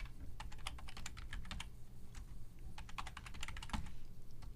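Typing on an Intsun K40 mechanical keyboard: rapid key clicks in two runs with a short pause between them.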